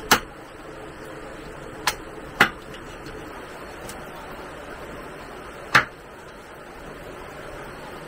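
Four sharp knocks: one right at the start, two close together about two seconds in, and one near six seconds, over a steady background hiss.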